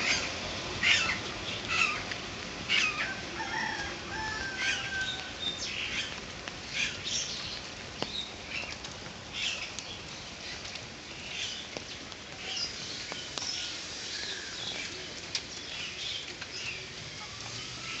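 Footsteps on a wet paved road at a walking pace, a short slap about once a second, with a few brief bird chirps.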